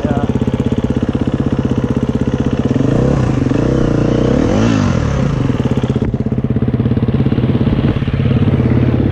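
Enduro dirt bike engine running at low revs with a fast, even pulse; the revs rise and fall a few times around the middle.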